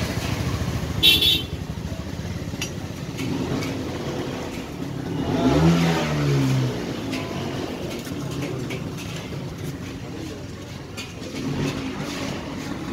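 Vehicle engines running steadily, with one engine revving up and falling away about five to seven seconds in. A short, sharp high beep sounds about a second in.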